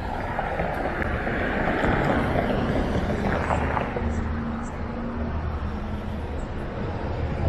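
Street traffic: a motor vehicle running past, a low rumble and road noise with a steady engine hum partway through.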